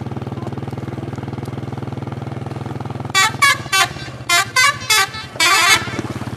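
A bus's telolet horn, the multi-tone musical horn, sounds about halfway through: six short toots, then a longer one, over the steady hum of the idling engine.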